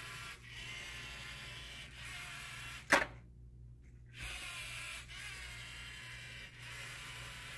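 LEGO Mindstorms EV3 robot motors whining steadily as the robot drives slowly at 25% power. About three seconds in there is one sharp click, and the motors stop for about a second before whining again.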